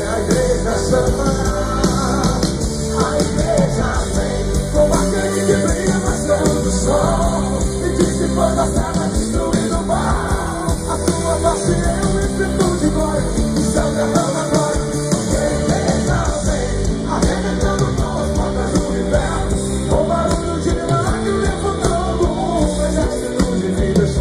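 Live gospel band playing amplified pop-rock with a lead singer, loud and continuous, heard from within the concert crowd.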